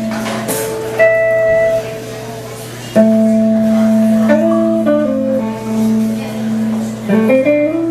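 Guitar playing a slow, unaccompanied intro for a jazz ballad: held chords and single notes left to ring. There is a high bell-like tone about a second in, and quicker notes near the end.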